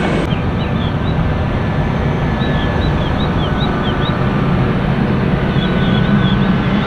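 Jet airliner's engines running: a loud, steady rumble, with a few clusters of short high chirps over it.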